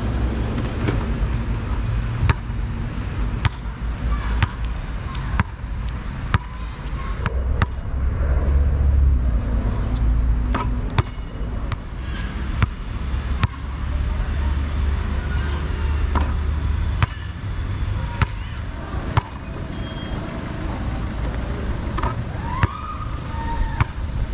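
A basketball bouncing on asphalt, single sharp bounces at irregular intervals of about a second. Behind it is a steady high-pitched drone of cicadas, and wind rumbles on the microphone at times.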